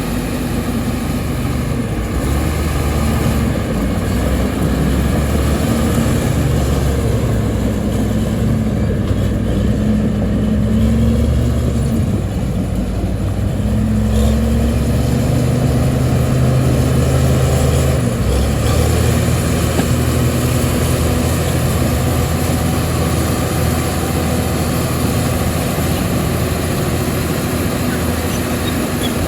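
Engine of heavy earth-moving machinery running steadily, its pitch rising and falling slightly at times as it works.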